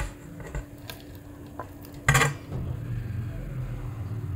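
Kitchenware knocking against a metal cooking pot as grated coconut is tipped into the rice and green gram porridge: a few light clinks, then a louder clatter about two seconds in, followed by a low rumble.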